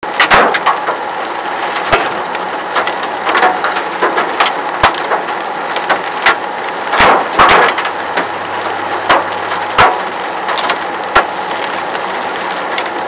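Hailstones striking hard surfaces in a storm: loud, irregular sharp cracks, sometimes in quick clusters, over the steady hiss of heavy rain.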